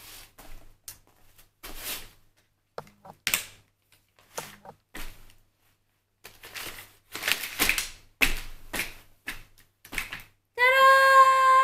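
GB Pockit lightweight stroller being unfolded by hand: a run of sharp clicks, snaps and knocks from its folding frame and wheels. Near the end a steady, held pitched tone sounds for about a second and a half, louder than the clicks.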